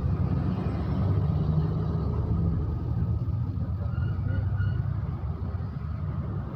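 Steady low rumble of road vehicles, with a few faint short high tones about four seconds in.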